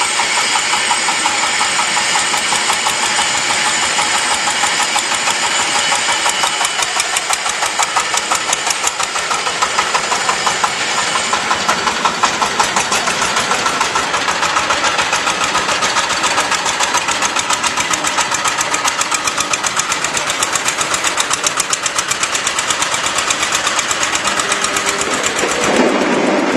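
Concrete block making machine running with a fast, steady mechanical rattle. A lower hum comes in near the end.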